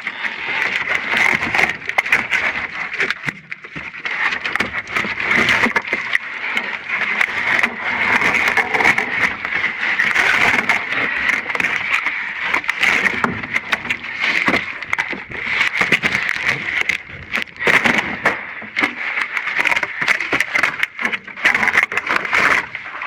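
Boxes of network cable being handled and unpacked, with irregular rustling of cardboard and short knocks and clatters, over a steady high-pitched hum.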